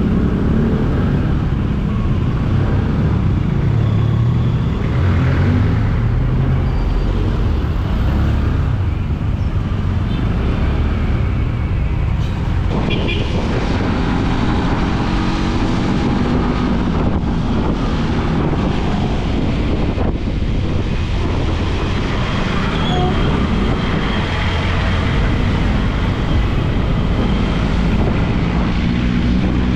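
Motorcycle engine running steadily while riding, its low hum shifting a little in pitch, over steady road and wind noise.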